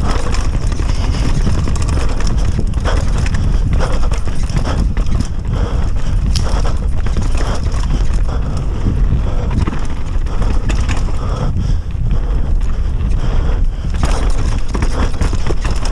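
Downhill mountain bike ridden fast over a dry dirt track: tyres rolling and skidding on dirt and roots, with many quick knocks and rattles from the bike over bumps, under a steady rumble of wind on the microphone.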